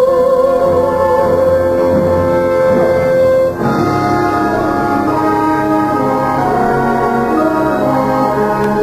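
Orchestral stage-musical score with brass: a long held high note ends about three and a half seconds in, then the orchestra moves through a slow run of sustained chords.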